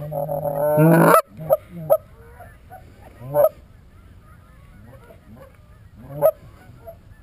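Goose honks: a loud, drawn-out run of calls in the first second, rising in pitch at its end, then single, fainter honks scattered through the rest, the clearest about three and a half and six seconds in.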